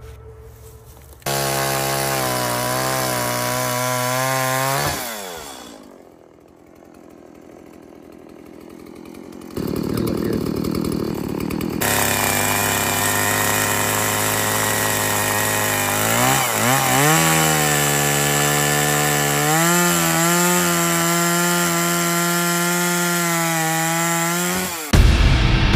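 Electric power saw cutting lumber. It starts suddenly, runs with a steady whine and winds down with a falling pitch about five seconds in. It starts again, drops briefly in pitch under the load of the cut midway and recovers, then stops abruptly near the end.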